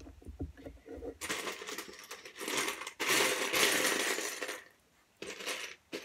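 Loose LEGO bricks clattering as a hand rummages through a plastic bin of them for about three and a half seconds, loudest near the end. Small clicks of bricks being handled come before and after.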